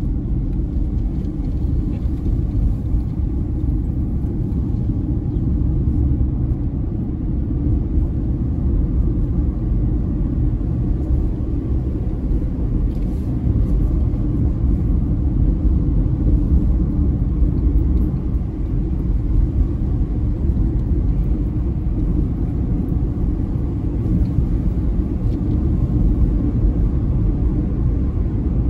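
Steady low rumble of a car driving, heard from inside the cabin: engine and tyre road noise.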